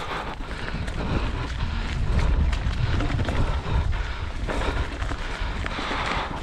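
Mountain bike riding fast down a rough dirt trail: tyres rumbling over rocks and roots, with irregular clicks and rattles from the bike. A heavy low rumble of wind on the microphone swells about two seconds in.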